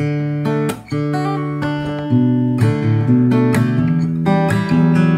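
Steel-string acoustic guitar strung with D'Addario EZ890 super light gauge bronze strings, playing a chord progression, strummed and picked, each chord struck and left ringing.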